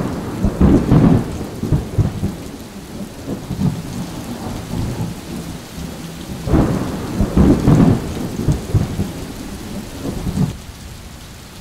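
Thunderstorm: steady rain with two heavy rolls of thunder, one about a second in and another about seven seconds in.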